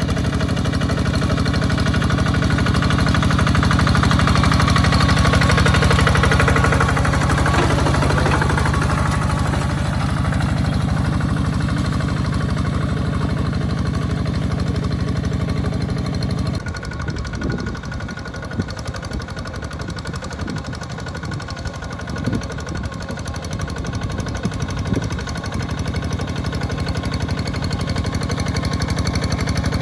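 Walking tractor's engine running steadily under load while plowing a wet rice paddy. About halfway through, the even hum gives way to a rougher, uneven sound with scattered knocks.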